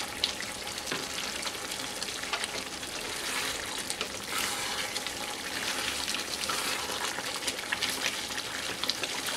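Chicken pieces sizzling in the spiced juices the meat has released in a coated kadai, stirred with a spatula. The steady frying hiss is broken by small scrapes and clicks against the pan.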